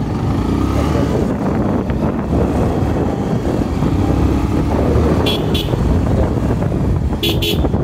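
Motorcycle riding along a road, its engine running steadily under rushing wind on the microphone. A horn gives two quick double beeps in the second half.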